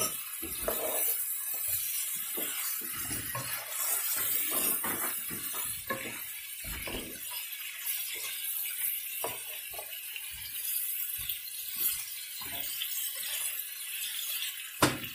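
Mutton chops frying in a pot, sizzling, while a spatula stirs them with repeated irregular scrapes and knocks against the pot. A sharper knock comes near the end.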